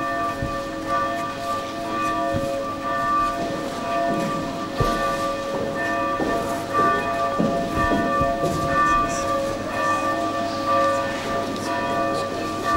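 Church bells ringing on and on, several pitches sounding together, with the shuffle and murmur of a procession walking past.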